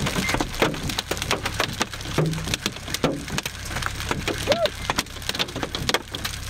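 Large hailstones hitting a vehicle's roof and body in a dense, irregular clatter of sharp knocks and cracks, over a steady low rumble.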